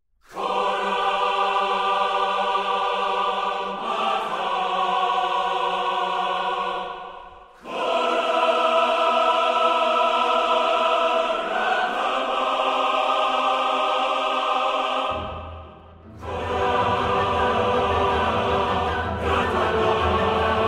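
Choral music, a choir holding long sustained chords. It dips away briefly twice, about seven and a half and sixteen seconds in, and a deep bass comes in just before the second dip.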